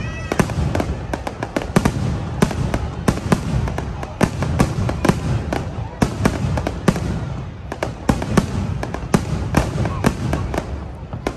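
Fireworks going off: a rapid, irregular series of sharp bangs, several a second, over a continuous low rumble.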